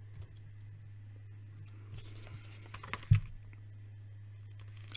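Small plastic building bricks handled with faint clicks, and a paper instruction sheet rustling about two seconds in, with a single dull thump just after three seconds. A steady low hum runs underneath.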